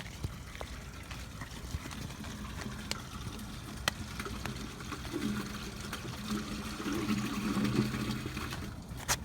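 The last of an RV's gray water trickling and running down the sewer hose as the tank finishes draining. From about halfway a low hum comes in and grows louder toward the end.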